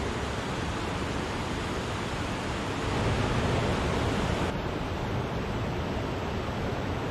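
Water pouring over Wachirathan Falls: a steady, even rush of falling water that swells slightly about three seconds in.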